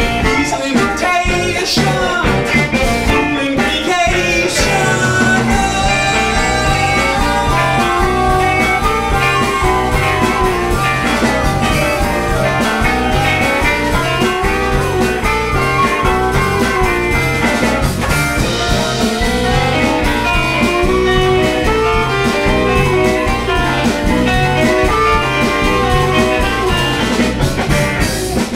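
Live band music: drums and bass keeping a steady beat, with guitar and a melody line moving over it.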